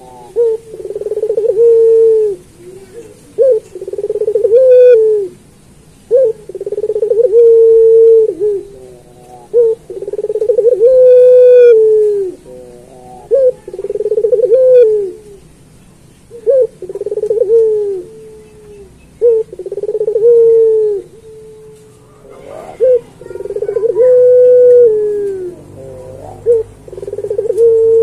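Puter pelung, a domestic barbary (ringneck) dove, cooing over and over. Each phrase is a short note followed by a long rolling coo held at one pitch that falls away at its end, about one phrase every three seconds.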